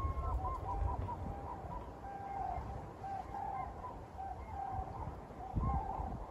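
Waterbirds on the lake calling: a rapid, continuous string of short calls at two slightly different pitches, with a low wind rumble on the microphone underneath.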